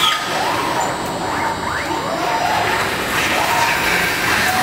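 Five-axis CNC router milling a workpiece: a steady noisy whir of the spindle and cutter, with motor tones that rise and fall as the axes move.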